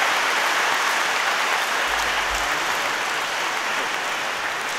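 Audience applauding, steady and slowly fading.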